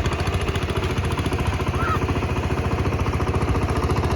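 A small engine running steadily with a rapid, even chugging beat.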